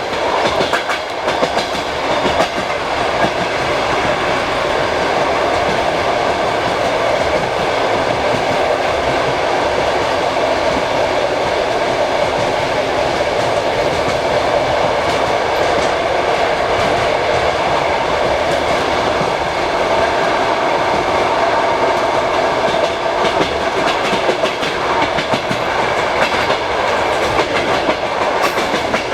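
Passenger train coach's wheels running steadily over the rails with a clickety-clack, heard loud through an open compartment window.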